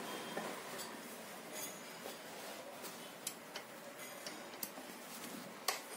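Scattered light metallic clicks and clinks, about half a dozen, from small metal parts and hand tools being handled while a demolition hammer is worked on, over a steady faint hiss. The sharpest click comes near the end.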